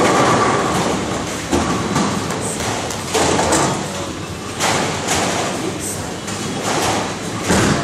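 Bowling alley lane noise: pins clatter as a ball hits them right at the start, then more rumbling and clattering from balls, pins and pinsetters on the lanes, coming in several sudden surges.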